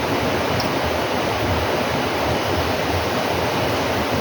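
Steady rushing noise with an uneven low rumble beneath it.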